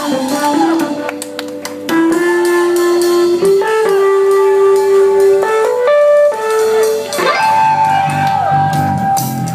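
Live band music: a lead melody of long held notes that slide between pitches, over a rhythm with drum hits.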